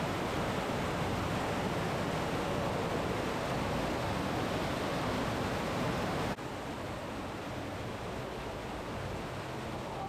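Cave waterfall roaring: a steady, heavy rush of falling water. About six seconds in it cuts abruptly to a quieter rush.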